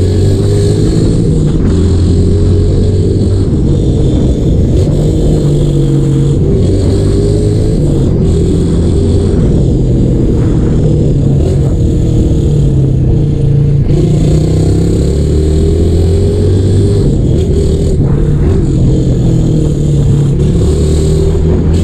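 Fuel-injected 150 cc motorcycle engine running through a gutted Roncar exhaust with its baffles removed, loud and raspy. The engine note rises and falls again and again as the rider accelerates and shifts gears.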